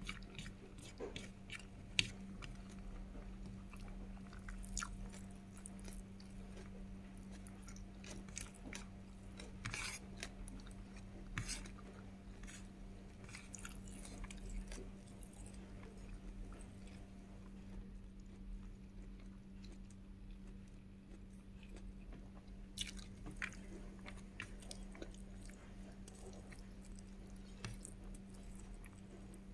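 Close-up chewing and biting of a meal of rice, bacon, scrambled egg and garlic, with scattered crunchy clicks and mouth sounds. A sharp click stands out about two seconds in, and a steady low hum runs underneath.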